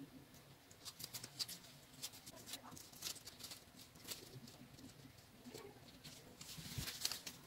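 Faint crackling and small scattered clicks of disposable-gloved hands pulling apart and handling soft steamed buns, with the densest run of clicks near the end.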